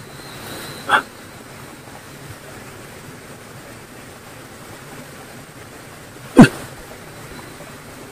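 Two sudden, sharp sounds over a faint steady hiss: a short one about a second in, and a much louder one about six seconds in that drops quickly in pitch.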